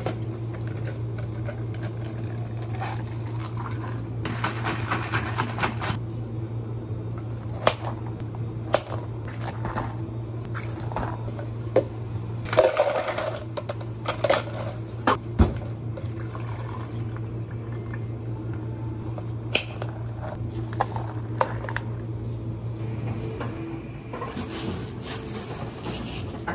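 Iced tea poured from a metal pitcher over ice into a plastic cup, then sharp clicks and knocks of plastic cups and dome lids being handled. A steady low hum runs underneath and drops away near the end.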